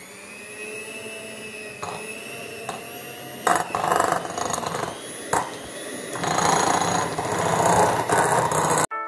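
Electric hand mixer beating softened butter in a glass bowl: a steady motor whine, turning rougher and louder with knocks from about three and a half seconds in as the beaters churn the butter. It cuts off suddenly near the end.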